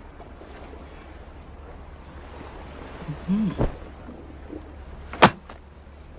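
A sharp knock about five seconds in, as bundles of banknotes are set down on a wooden table, with a smaller knock and a man's short low murmur a little earlier, over a quiet steady hum.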